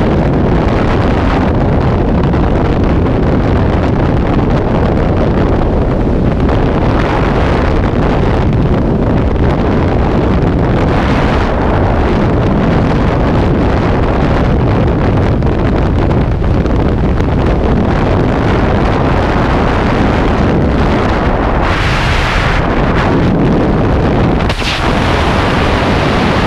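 Freefall wind rushing over a skydiver's camera microphone: a loud, steady roar, shifting briefly a couple of times near the end.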